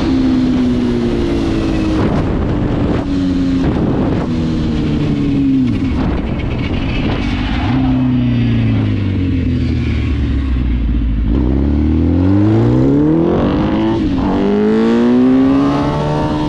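Yamaha R1 inline-four sport-bike engine in a Raptor quad, accelerating hard through the gears, its pitch climbing and dropping back at each shift. A deeper, lower engine tone holds for a few seconds around the middle, then the revs climb steeply again near the end.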